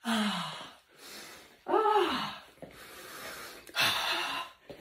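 A woman's breathy gasps and wordless vocal exclamations: one falling in pitch at the start, a longer one about two seconds in that rises and falls, and a sharp breathy gasp near the end.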